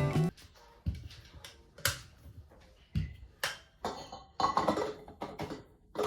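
Background music cuts off, then a series of about eight light knocks and clicks with quiet gaps between them, the sound of everyday objects being handled and set down.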